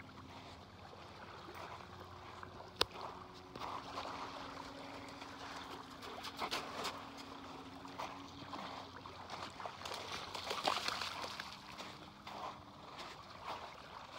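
Lake water splashing and lapping in the shallows at the shoreline as a dog wades through it, with a faint steady hum underneath and one sharp knock about three seconds in.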